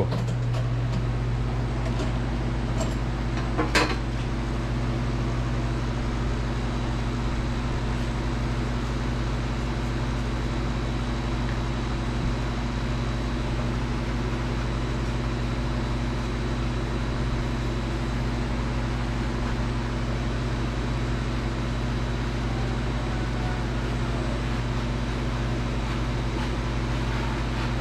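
Steady machine hum with several fixed tones and a strong low drone, unchanging throughout, with a single sharp click about four seconds in.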